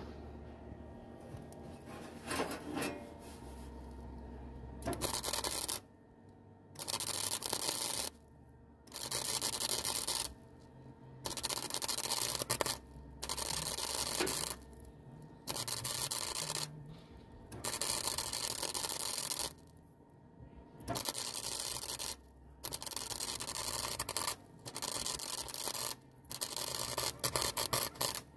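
Welder laying a run of short stitch welds on a steel floor pan: about a dozen crackling, hissing bursts of one to two seconds each, separated by brief pauses, beginning about five seconds in.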